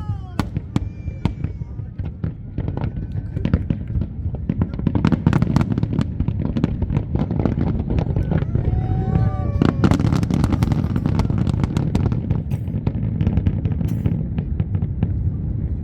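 Aerial fireworks display: a rapid, dense run of bangs and crackles from many shells bursting, thickest in the middle. Voices call out now and then.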